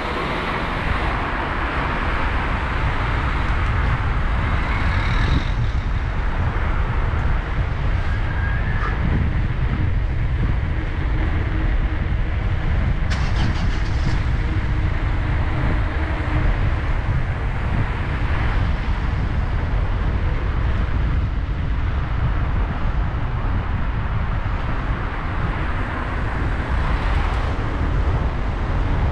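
Steady low rumble and rushing noise of a vehicle in motion.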